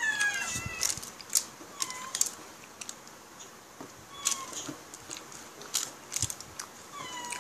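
Pet cats meowing for the chicken: four short, high, bending calls spread over the stretch. Sharp clicks and crackles of hands picking at food on a foil-lined plate fall between the meows.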